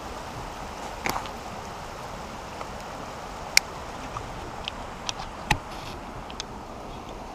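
Cold Steel Voyager folding knife with a Tri-Ad lock being drawn from a pocket and opened, heard as a few sharp clicks and handling knocks as the blade swings out and locks. A steady rushing noise runs underneath.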